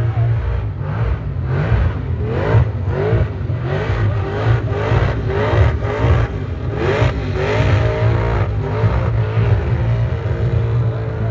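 Supercharged engine of a Ford XE Falcon panel van revving hard in repeated surges, about two a second, while its rear tyres spin in a smoking burnout, then settling to a steadier high-rev note near the end.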